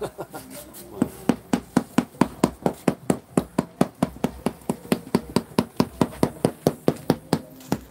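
Mallet tapping a granite floor tile down into its mortar bed: a fast, even run of sharp knocks, about five a second, starting about a second in.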